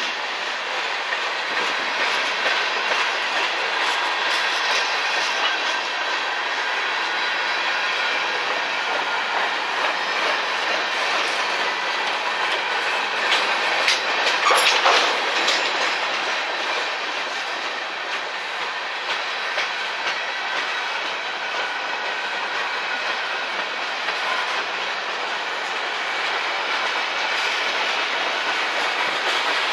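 Freight train cars rolling past, steel wheels clicking over the rail joints in a steady continuous rumble, with a brief louder surge about halfway through.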